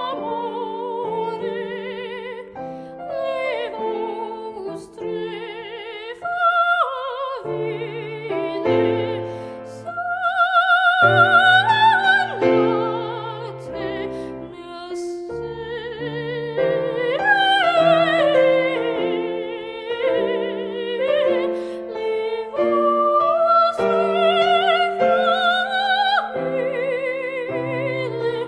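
A woman singing classical art song in an operatic style, with a wide vibrato on held notes, accompanied by piano.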